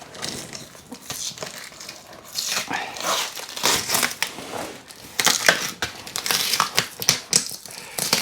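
Packing tape being pulled and torn off a cardboard box, with irregular crackling and crinkling that grows louder and busier partway through.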